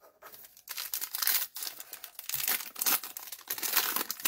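Foil wrapper of a trading card pack being torn open and crumpled by hand: dense crinkling and crackling that picks up under a second in.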